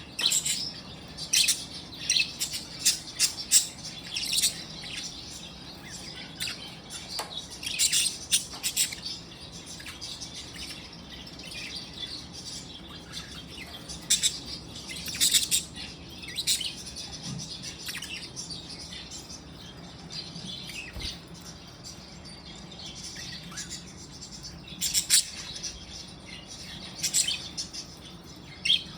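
Budgerigars chattering and chirping in short bursts of quick, high chirps, with quieter gaps between the clusters.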